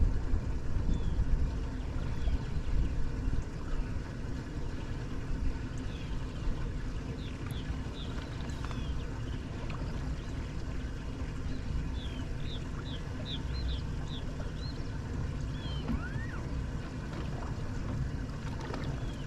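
Wind buffeting the microphone and water lapping on a fishing boat, with short high chirps now and then and a quick run of them about twelve seconds in.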